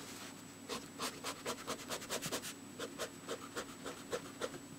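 Pen nib scratching on sketchbook paper in a run of short quick strokes, about three or four a second, as small rivet circles are inked in.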